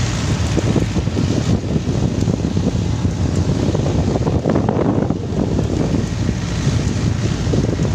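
Wind buffeting the microphone over rushing sea water and the steady low running of a fishing boat under way.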